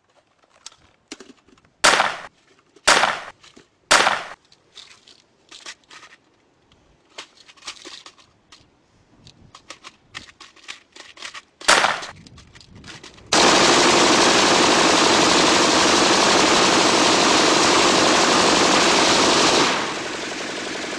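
Gunshots: three loud single shots about a second apart, then scattered small clicks and pops, and another shot near twelve seconds in. From about thirteen seconds a sudden loud, continuous noise sets in, dropping in level shortly before the end.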